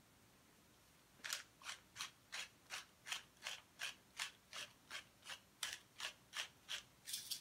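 Wooden pepper mill grinding black pepper: a regular run of short grinding strokes, nearly three a second, starting about a second in.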